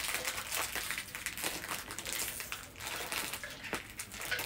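Plastic wrapper of a small pack of Oreo cookies crinkling continuously as it is handled.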